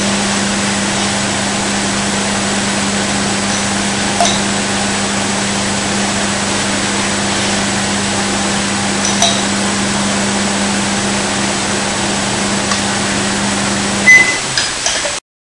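Microwave oven running with a steady hum and fan noise while heating a wet sponge, with a few faint clicks. About 14 seconds in it gives a short high beep and the hum stops, marking the end of its one-minute cycle, followed by a few clicks.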